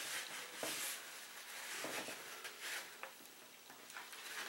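A rag rubbing and wiping over the plastic fuel tank cap and rim of a nitro RC truck: a few short, faint scrubbing strokes with light clicks of plastic being handled.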